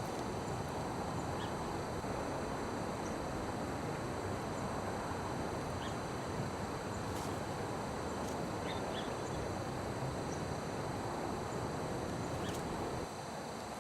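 Steady outdoor ambient noise with a few faint, short high chirps and ticks scattered through it.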